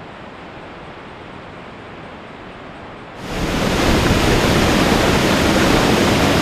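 Floodwater pouring over a dam spillway: a steady rush of water, moderate at first, turning much louder and fuller about three seconds in.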